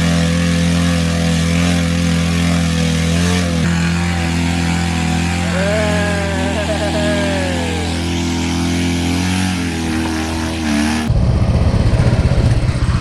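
Small engine running at a steady speed. About six seconds in, a brief wavering higher sound rises and falls over it. About eleven seconds in, the sound cuts to a rougher, fast-pulsing engine close up.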